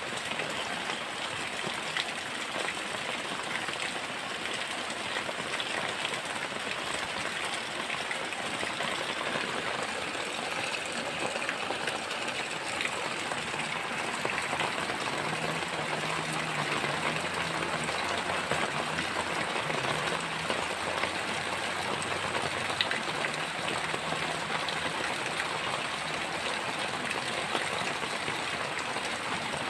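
Heavy rain falling steadily, a dense even hiss with no thunder claps. About halfway through, a faint low hum comes in under the rain and fades out again near the end.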